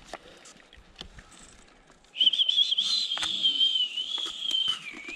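A long, high whistle that starts about two seconds in and holds on one pitch with a slight waver; faint clicks and rustling come before it.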